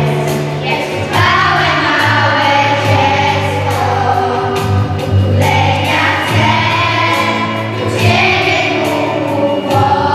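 Children's choir singing a worship song with guitar accompaniment, in phrases over steady sustained low notes.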